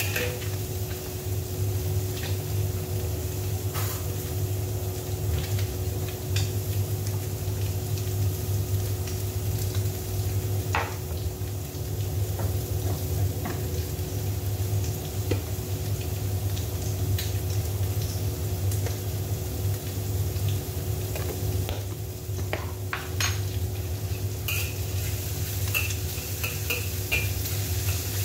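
Metal spatula scraping and clinking against a wok while diced vegetables and egg fry in oil, with scattered sharp taps and a quick run of them near the end. A steady low hum runs underneath.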